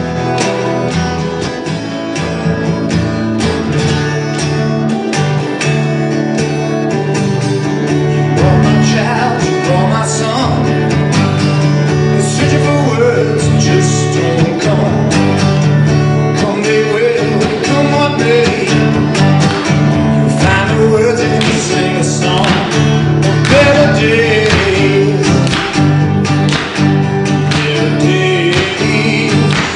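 Country-style acoustic guitar music, strummed and picked over a steady low note.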